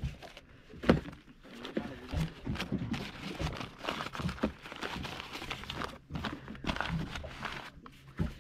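Paper wrapping of a rice lunch packet being unfolded and pulled open by hand: irregular crinkling and rustling of paper.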